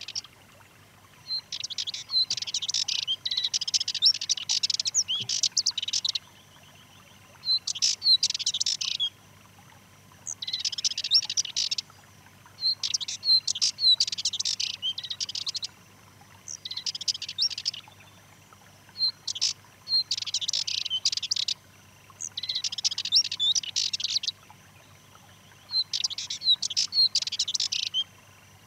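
Male Sardinian warbler singing from its song post: a series of rapid, scratchy chattering phrases, each one to a few seconds long, with short pauses between them.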